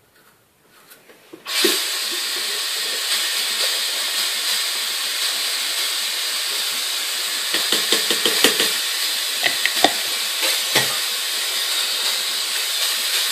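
Bathroom sink faucet turned on about a second and a half in, running in a steady hiss while the toothbrush is rinsed, with a few knocks and clatters against the sink partway through.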